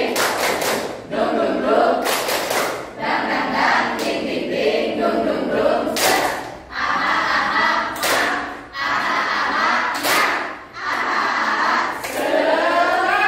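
A group of girls singing together in unison while clapping their hands, with sharp claps in unison landing between sung phrases about every two seconds.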